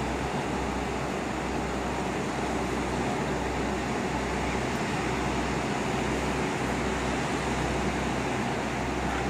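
Steady outdoor background noise: an even low rumble with hiss above it, with no distinct events.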